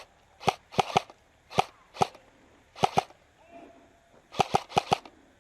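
Airsoft gunfire: about a dozen sharp shots fired one at a time, mostly in quick pairs and short groups, with a tight cluster of four near the end.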